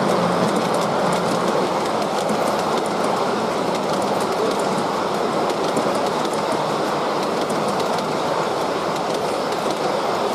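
G scale model passenger cars rolling past on the track, a steady rolling rumble with light, rapid clicking of the wheels over the rail joints.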